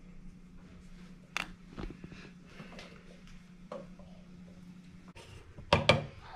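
Hands handling tomatoes and a small plastic blender cup on a kitchen counter: scattered soft knocks, then a cluster of sharper knocks near the end. A steady low hum runs underneath and stops about a second before the end.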